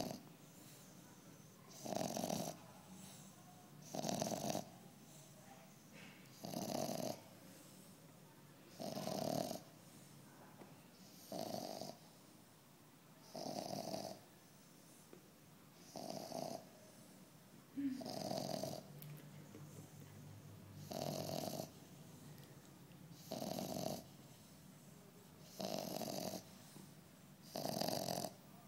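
A dog snoring in regular snores, each about half a second long, one roughly every two to two and a half seconds.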